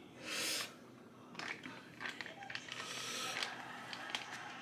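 Short hissing breaths blown out through the mouth, with a few faint clicks, from a man with a mouthful of scalding-hot curry.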